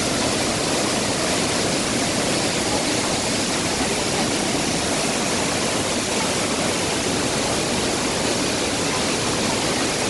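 Pailón del Diablo waterfall: a large volume of water plunging into its gorge, making a loud, steady, unbroken rushing noise.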